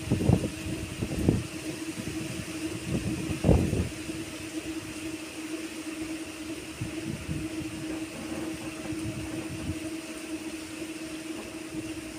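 Wind buffeting the microphone in gusts, strongest in the first four seconds, over a steady low hum and a faint high hiss.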